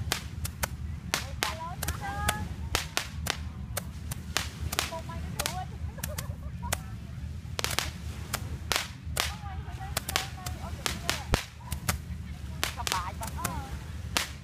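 Small fireworks going off overhead: a run of sharp cracks and pops, several a second and irregular, over a steady low rumble.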